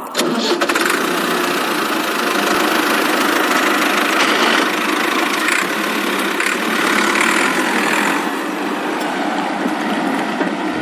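Small electric motor and gearbox of a miniature toy tractor running steadily as it drives along, pulling a loaded trailer; a busy, even mechanical whirr that starts and stops abruptly.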